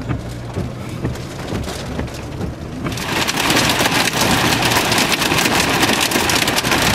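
Inside a vehicle, a low steady engine and road hum. About three seconds in, heavy rain suddenly starts pelting the roof and windshield in a dense, loud patter that keeps on, brought by the storm's rear-flank downdraft.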